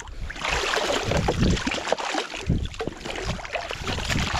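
Water splashing and sloshing in an ice-fishing hole as a burbot is hauled up on a setline, with many small irregular splashes.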